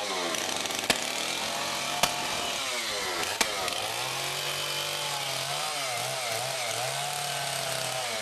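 A small engine running and revving up and down again and again, with three sharp knocks in the first few seconds.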